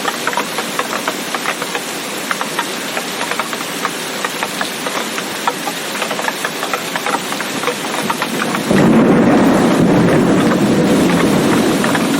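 Steady heavy rain with the close patter of drops hitting a surface. About nine seconds in, a loud low rumble of thunder starts suddenly and carries on to the end.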